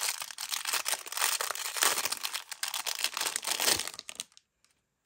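Packaging of tiny paper clips crinkling and crackling as it is handled, a dense rustle that stops about four seconds in.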